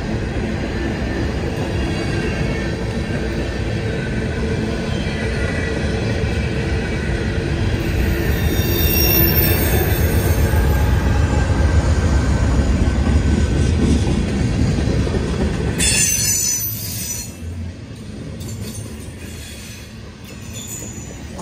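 Freight train passing close by: steel wheels rolling over the rails with wheel squeal. From about eight seconds in, the mid-train distributed power locomotive's diesel engine goes by as a deeper, louder rumble, and the sound drops away at about sixteen seconds as tank cars follow.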